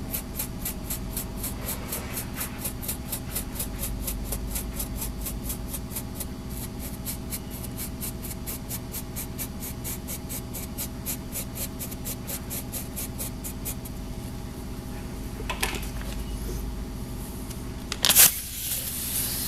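Wire brush scrubbing buffing debris off a tire's buffed inner liner in quick, even strokes, about four a second, which stop about two-thirds of the way through. A sharper clatter comes near the end, over a steady low hum.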